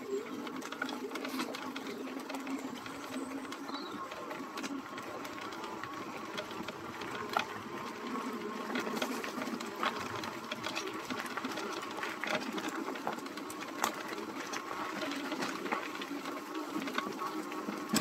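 Gunai MX25 electric bike riding along a bumpy dirt trail: a steady electric-motor whine over tyre and rolling noise, with scattered sharp clicks and rattles from the bike going over bumps.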